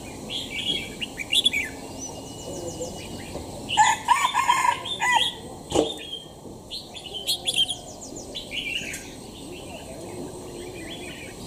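Caged red-whiskered bulbul singing in short, bright phrases with quick high trills. A louder rooster crow about four seconds in is the loudest sound.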